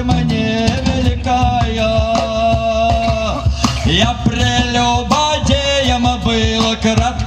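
Live band music: a man singing long, wavering held notes into a microphone, over upright double bass and cajon keeping a steady beat.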